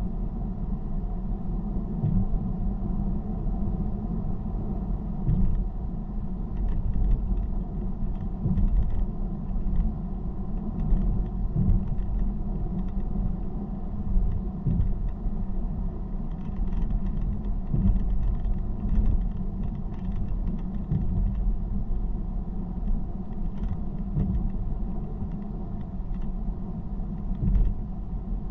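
Car driving at motorway speed: a steady low rumble of road and tyre noise, with a light knock now and then.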